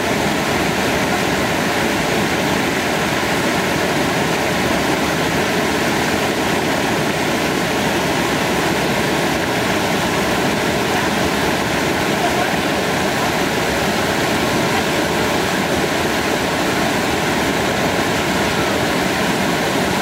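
Waterfall: a steady, loud rush of falling water, unbroken throughout.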